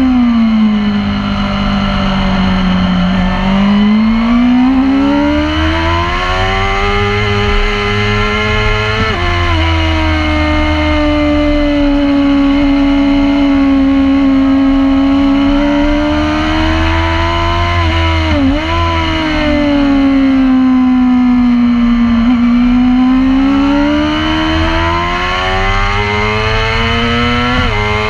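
Supersport racing motorcycle engine at high revs, heard onboard with wind rush. The engine note sags and climbs through the corners, with abrupt steps in pitch about nine seconds in and again near the end, and a brief dip about two-thirds of the way through.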